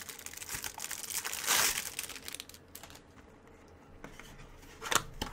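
Cellophane shrink-wrap crinkling and tearing as it is pulled off a small cardboard box, loudest about one and a half seconds in, then fading to light handling. A single sharp tap near the end.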